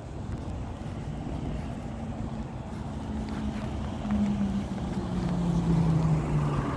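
A motor vehicle passing by, its engine tone growing louder and dropping in pitch over the last few seconds, over a steady low rumble of wind on the microphone.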